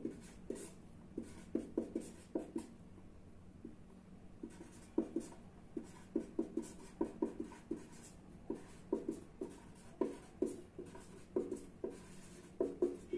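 Marker pen writing on a paper sheet: a run of short, uneven strokes and taps as words are written out by hand.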